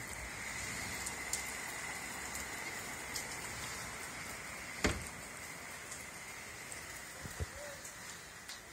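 Heavy downpour of rain falling steadily, with one sharp tap about five seconds in.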